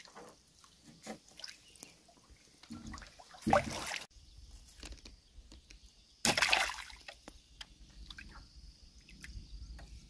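Water sloshing and dripping, with two short louder splashes about three and a half and six seconds in.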